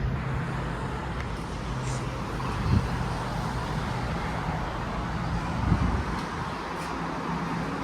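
Steady rumble of vehicle noise, with two soft thumps about three and six seconds in.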